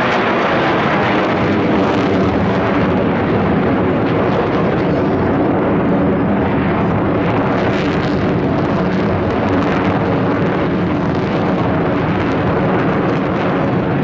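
Steady jet engine noise from Sukhoi Su-35S fighters flying over in formation, their twin AL-41F1S afterburning turbofans running at a constant level with a droning tone through it.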